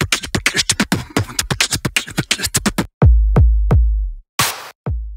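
Electronic intro jingle with drum-machine beats: a fast run of kick-drum hits, then, about three seconds in, three loud bass-drum hits with long low booms, a short crash-like burst of noise, and two last hits.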